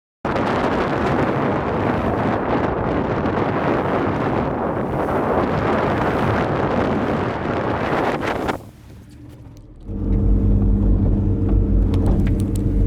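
Heavy wind noise rushing on the microphone for most of the first eight and a half seconds. Then, after a brief quieter gap, the steady note of twin two-stroke 40 HP Evinrude outboards running under way.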